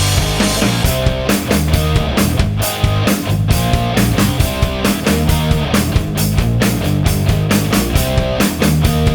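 Background rock music with electric guitar and drum kit, playing at a steady beat.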